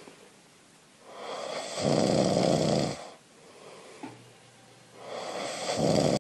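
A person snoring in slow, regular breaths: one long snore about a second in, lasting nearly two seconds, and the next one building near the end.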